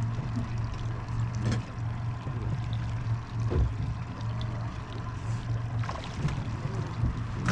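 Fishing boat's engine idling with a steady low hum, with water sloshing against the hull and a few short splashes.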